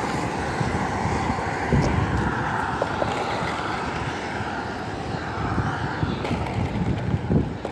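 Toy RC car's small electric motor whirring as it drives over asphalt, with wind rumbling on the microphone. The motor is running on a weakening battery: the owner thinks it is dying.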